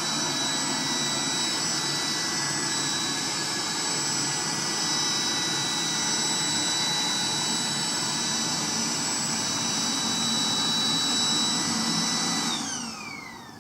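Roomba 980 robot vacuum running: a steady rushing noise with a high whine from its vacuum motor, which winds down, falling in pitch, about a second before the end as the cleaning run stops.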